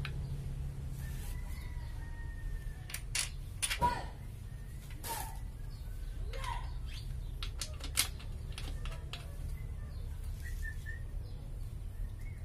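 Scattered sharp metal clicks and clinks of bolts being fitted by hand into a car transmission housing, loudest about four seconds and eight seconds in, over a steady low hum.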